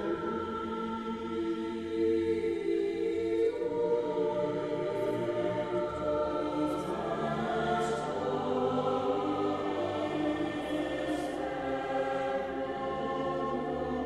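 Background music of a choir singing slow, sustained chords that change every few seconds.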